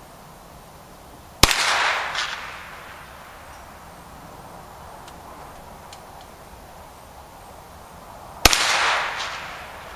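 Two single shots from a Hi-Point 995 9mm carbine, about seven seconds apart, each ringing out in a long tail. A fainter sharp sound follows each shot under a second later.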